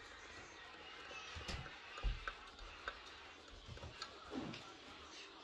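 Butter being grated on a metal box grater into a bowl of flour: faint scraping strokes with a few light clicks and soft knocks.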